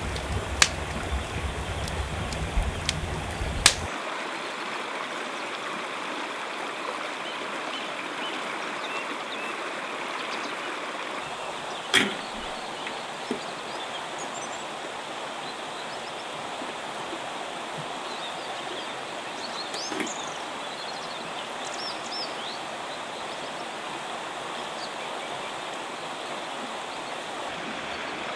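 Steady rush of a shallow river running over stones. For the first few seconds a wood campfire crackles, with a few sharp pops and a low rumble of flames, then only the river is left; a single sharp knock comes about twelve seconds in.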